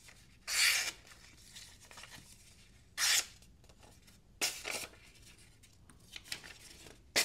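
Knife blade slicing through a sheet of paper, several short hissing cuts spaced a second or two apart.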